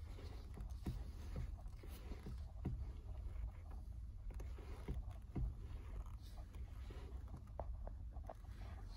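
A low steady rumble in a car's footwell, with scattered light clicks and creaks over it.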